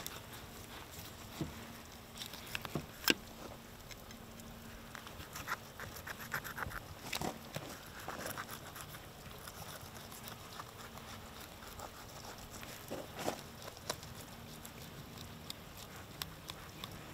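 Fillet knife cutting and scraping along a large grouper's back on a plastic cleaning table: scattered soft clicks and rasps, with a faint steady low hum underneath.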